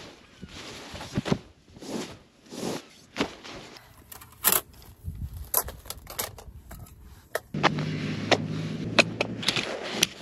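Fabric rustling as a down sleeping bag is spread out, then sharp clicks and clinks of camping cookware and gear being set down. From about two thirds of the way in, a steady low hum runs under further clicks.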